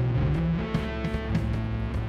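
Background music: an instrumental led by guitar, with a bass line under it.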